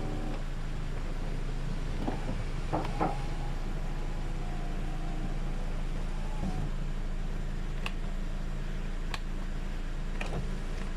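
1998 Toyota Corolla power window being tested with its repaired master switch: sharp switch clicks several times and the window motor running briefly, over a steady low hum.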